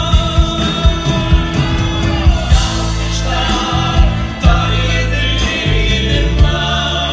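Live Jewish music: male vocals sung into microphones over an amplified band, with a steady drum beat and bass.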